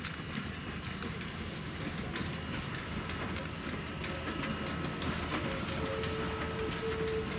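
Victorian Railways J-class steam locomotive hauling carriages slowly past, its rumble growing louder as it approaches, with many sharp clicks from the wheels and running gear. A steady thin tone joins in during the last second and a half.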